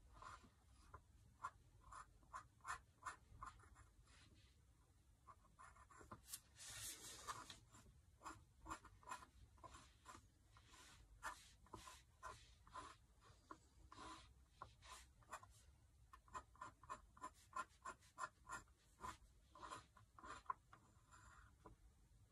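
Faint scratching of a fine paintbrush flicking ink onto sketchbook paper in short, quick strokes, one or two a second, with one longer brushing stroke about six seconds in.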